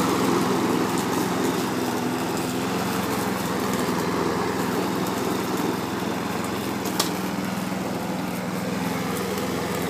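Lawn mower running steadily under load as it is pushed through grass, with a single sharp click about seven seconds in.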